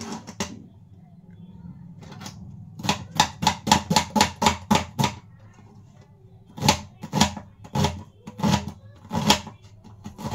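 Kitchen knife chopping an onion on a wooden cutting board: a fast run of sharp blade strikes, about five a second, then a slower run of about two a second near the end.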